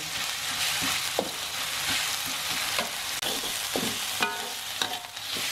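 Ground spice paste frying in oil in a wok with a steady sizzle, a metal spatula stirring and scraping against the pan every second or so. The paste is being sautéed until it dries out and starts to brown.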